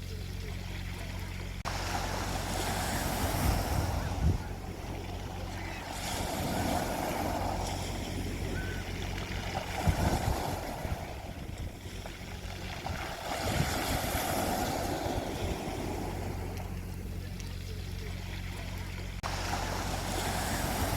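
Sea waves breaking on a beach, the surf swelling and washing out about every three to four seconds, over a steady low hum.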